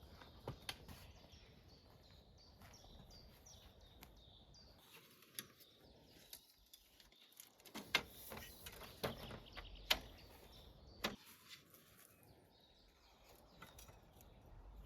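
Small birds chirping faintly in quick repeated short notes, with a few sharp knocks and clicks in the second half.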